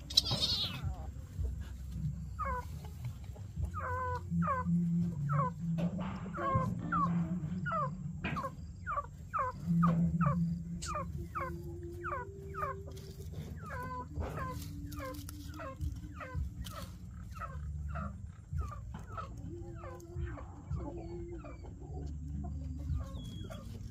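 Young pets crying: a long run of short, high calls, each falling in pitch, two or three a second, over a low steady hum.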